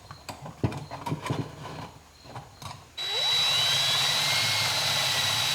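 A few knocks and clicks of parts being handled, then about three seconds in a power drill starts and runs at speed with a high whine, cutting off sharply.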